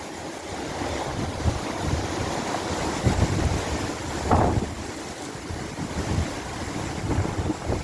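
Wind gusting and buffeting the microphone: an uneven low rumble that swells and falls, with a sharper gust about four seconds in.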